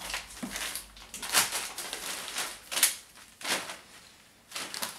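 A few scattered soft taps and rustles from a toddler's hands on a plastic infant car seat, with one slightly sharper knock about halfway through.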